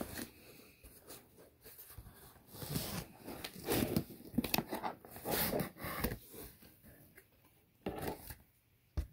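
Paper packaging rustling and crinkling as items are handled and unwrapped in a cardboard box, in irregular spells, with a couple of short knocks near the end.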